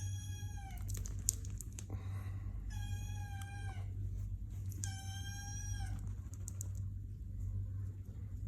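Sphynx kitten mewing three times, high-pitched and each just under a second long, with a slight drop in pitch at the end of each mew, over a steady low hum.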